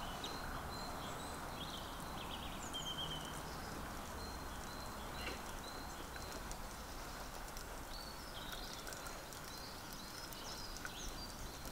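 Small birds chirping and calling intermittently over a steady low outdoor hiss.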